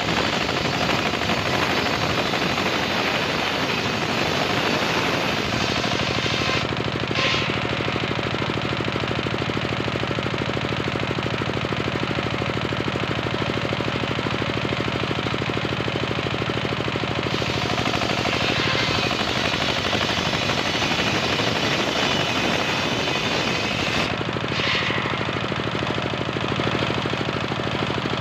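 Home-built table circular saw (serkel) ripping a wooden plank lengthwise, the large blade cutting loudly and steadily through the timber, with a brief higher-pitched whine twice.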